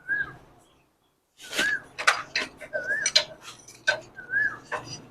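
Sharp metallic clicks and knocks, like hand tools working on engine parts, mixed with a short chirp that rises and falls and repeats about every second and a half. The chirp is most likely a bird's call.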